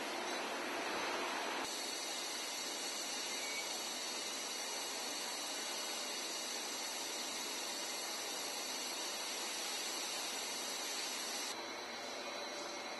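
Steady hiss of an automated powder coating line's spray booth. The noise changes abruptly about two seconds in and turns quieter near the end.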